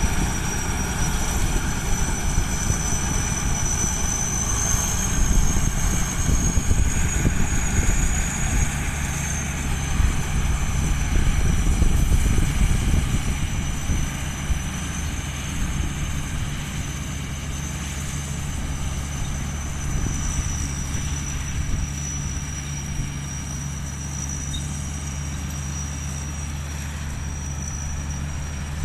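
Strong gusty wind buffeting the microphone in an open field, a heavy low rumble that is strongest in the first half and eases off after about halfway.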